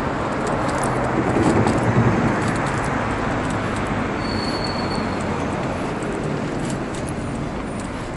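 City road traffic, with a vehicle passing that swells about one and a half seconds in, over the light clicking and rattling of a wheelchair rolling along a paved sidewalk. A brief high tone sounds about four seconds in.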